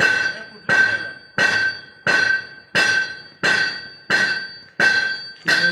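Metallic strikes repeating at an even pace, about three every two seconds, each one ringing on briefly and dying away.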